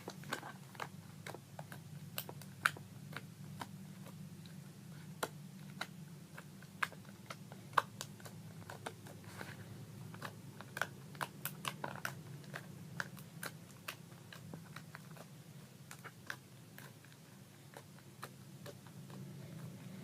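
Slime being squished, poked and folded by hand, giving irregular small sticky clicks and pops over a steady low hum.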